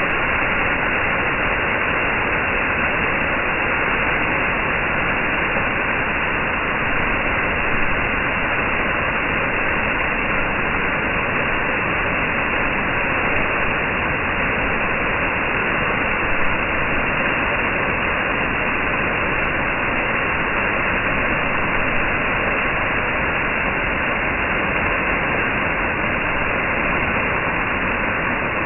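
Small forest waterfall cascading down a rock face: a steady rush of falling, splashing water.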